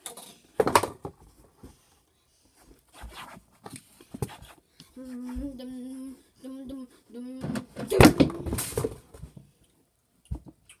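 A child humming one steady note in three short stretches, followed by a cluster of loud knocks and thumps.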